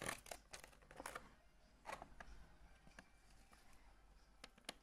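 Faint, irregular clicks and light taps of a clear plastic figure case and its foam insert being handled, about ten in all.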